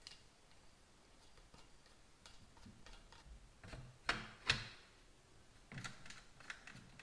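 Scattered light mechanical clicks and taps, with two sharper clicks about half a second apart around four seconds in and a few more near the end.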